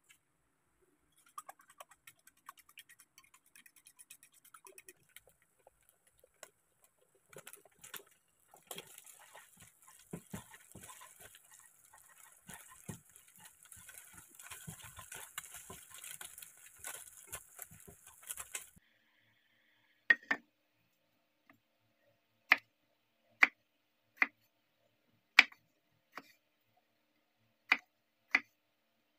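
Faint light clicks and taps as eggs are seasoned in a china plate. Then beaten eggs sizzle in a hot frying pan while a spatula scrambles them, for about ten seconds. After the sizzling stops, a kitchen knife chops through an eggplant onto a wooden cutting board: about nine sharp knocks, roughly one a second, the loudest sounds here.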